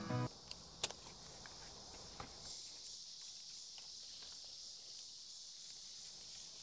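A single sharp snip of wire cutters about a second in, with a few fainter ticks of handling, over faint insects calling steadily.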